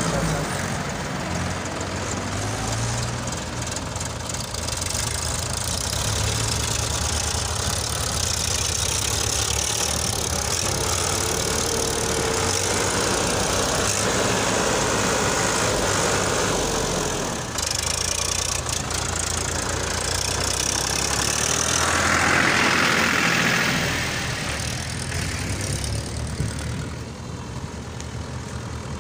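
Two diesel tractor engines, a Farmtrac and a Mahindra, running under load as they pull loaded trolleys. The sound is a continuous low engine drone that swells louder around three-quarters of the way through.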